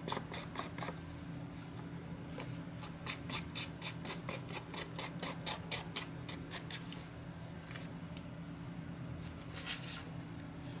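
Ink pad rubbed along the edges of a paper card in quick, scratchy strokes, about four a second, pausing briefly near the end before a last few strokes.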